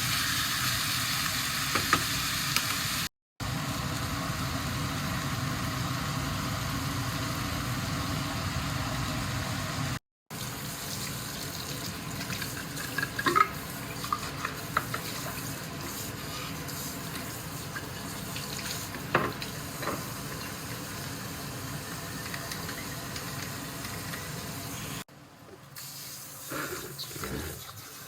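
Kitchen sounds during cooking: a steady hiss, like food sizzling in a pan or a tap running, with a few light clinks and knocks of utensils. The sound is cut into several short clips, and it is quieter in the last few seconds.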